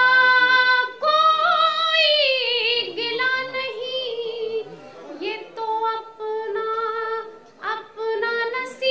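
A woman singing Urdu ghazal verse unaccompanied, in the sung tarannum style, with long held notes that waver, broken by short pauses between phrases.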